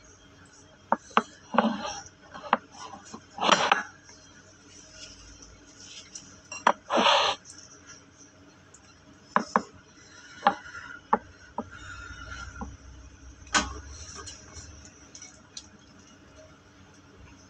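Eating sounds of a person eating rice and braised pork by hand from ceramic bowls. Scattered sharp clicks and clinks of the bowl and fingers run through it, with two brief louder rustling sounds about 3.5 and 7 seconds in.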